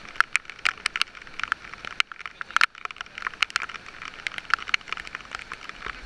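Irregular sharp taps and crackles of raindrops hitting the action camera's waterproof housing, over a steady hiss.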